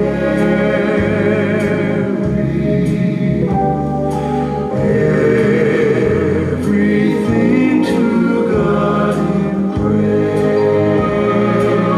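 Hymn sung by a choir with vibrato over a sustained low accompaniment whose bass notes change in steps every second or two.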